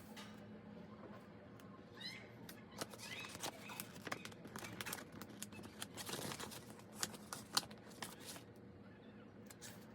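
Paper and stickers being handled on a journal page: irregular crinkling, rustling and small taps and clicks, busiest in the middle, over a faint steady hum.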